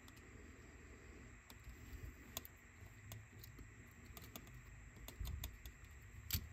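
Faint, irregular small clicks and taps of a screwdriver and small plastic parts as a cassette Walkman is taken apart, with one sharper click near the end.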